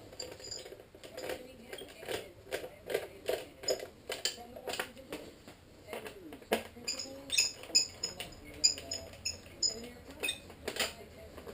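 Irregular clicks, knocks and small metallic clinks of hand tools and screws being handled while fairing panels are fitted, with a quick run of bright ringing clinks about seven seconds in.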